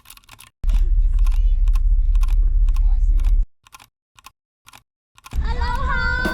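Choppy clips of deep rumbling handling or wind noise on a small action camera's microphone, with scattered clicks and taps. Near the end a high voice comes in.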